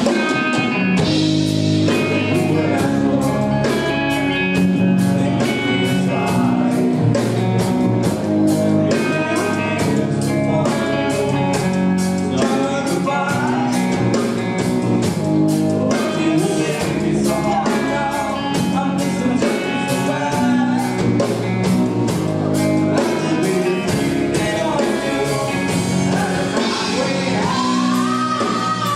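Live rock band playing a song: electric guitars and a drum kit keeping a steady beat of about two hits a second under a male lead singer, who holds a long note near the end.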